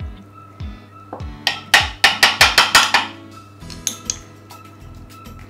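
A quick run of sharp clinks, about four a second, from a metal teaspoon knocking against a glass jar while scooping out chipotle paste. Underneath is background music with a steady thumping beat.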